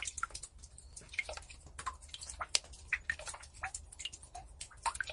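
Water drops falling irregularly, a quick scatter of small clicks and short pitched plinks.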